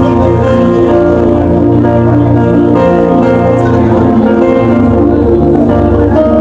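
Background instrumental music with sustained chords over a steady bass, played during prayer.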